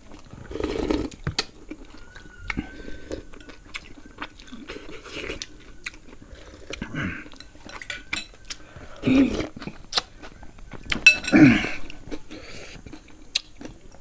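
Metal spoons clinking against a ceramic soup bowl and plate in many sharp little taps, with chewing and a few short wordless vocal sounds in between.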